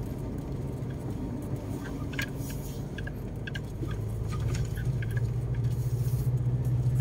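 Car engine running while driving over a rough dirt road, heard from inside the cabin, with light clicks and rattles. The engine note grows louder about halfway through.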